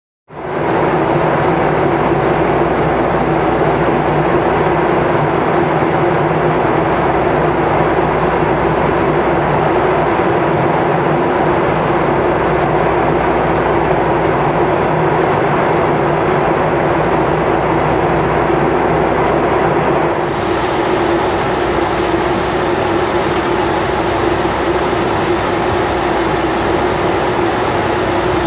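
Steady jet engine and airflow noise heard inside the cabin of a Boeing 757-200, with a constant hum under a broad rush. About 20 seconds in, the sound turns hissier and brighter.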